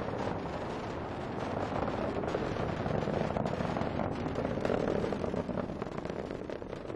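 Falcon 9 first stage, with its nine Merlin engines, in powered ascent: a steady rocket rumble full of rapid crackling pops, easing off slightly near the end.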